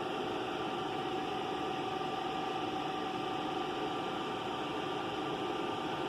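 Steady background hum and hiss from a running machine, with a couple of constant tones and no change throughout.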